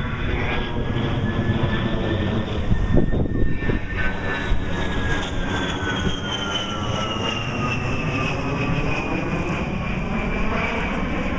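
Jet aircraft flying past, a steady engine roar with a whine that slides slowly down in pitch as it goes by.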